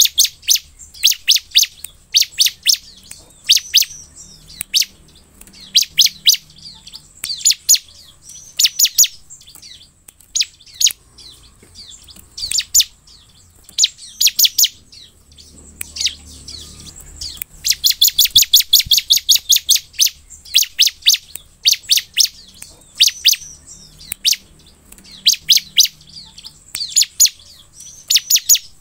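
Bar-winged prinia (ciblek) singing: repeated bursts of rapid, high-pitched chirping notes, with one longer run of notes about two-thirds of the way through.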